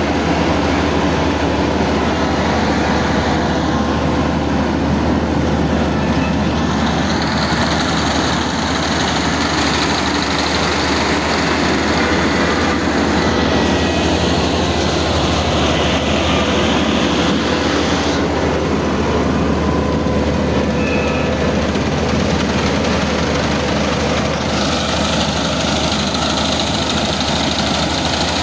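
Kubota KAR90 tracked rice combine harvester running at close range: its engine and threshing gear give a loud, steady drone. A hiss comes and goes over the drone several times.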